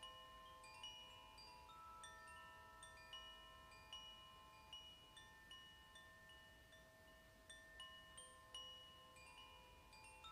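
Koshi wind chime ringing softly: irregular strikes, roughly one to three a second, of several clear tuned tones that ring on and overlap.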